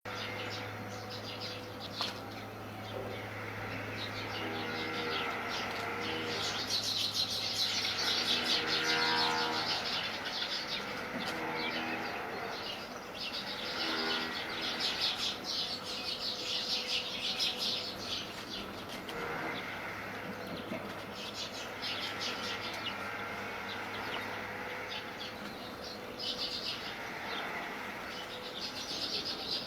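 A flock of small birds chirping and twittering, with wings flapping. A steady low hum runs for about the first third and again through the middle.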